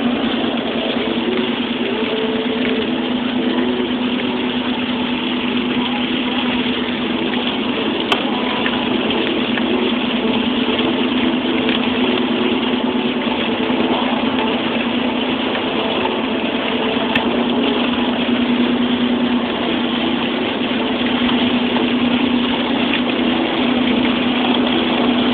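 Steady drone of a moving car heard from inside the cabin: engine and road noise with a constant low hum, unchanging throughout.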